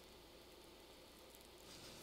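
Near silence: room tone with a faint steady hiss, and a faint soft rustle near the end.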